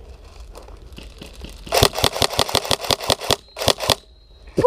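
Airsoft gun firing: a rapid string of about a dozen sharp shots at roughly seven a second, then a short burst of three more.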